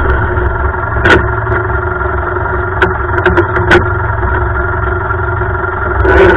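Lawn tractor engine running steadily, with a few sharp knocks about a second in and around three seconds in, and getting louder again near the end.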